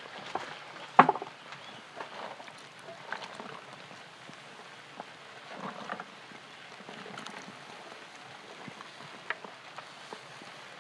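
Dasulgi and chicken broth bubbling in a large steaming aluminium pot. There is a sharp knock about a second in, and a short clattering splash around the middle as garlic cloves are tipped into the broth from a plastic bowl.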